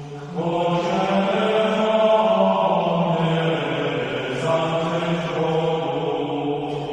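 Choir singing a slow sacred chant in long held notes, with a new phrase entering about half a second in and the harmony shifting about four seconds in.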